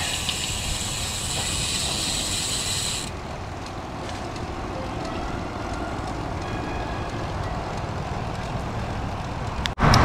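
Steady wind rush on the microphone with tyre and road noise from a Cervélo Caledonia road bike rolling along. A high hiss in the first few seconds cuts off sharply about three seconds in, and the sound breaks off briefly just before the end.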